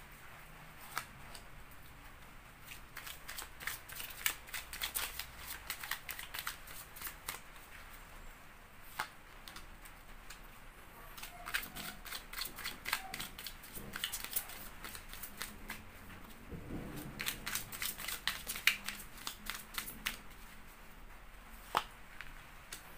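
Tarot cards being handled by hand: shuffled and drawn from the deck, then laid down one by one, heard as runs of light, quick clicks and flicks with short pauses between.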